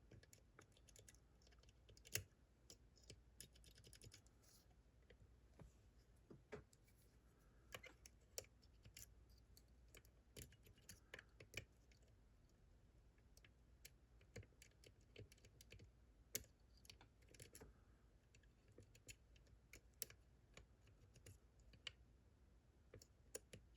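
Faint, irregular small metal clicks and taps of a lock pick working the pins of a seven-pin pump lock, scattered through the stretch with a few sharper clicks.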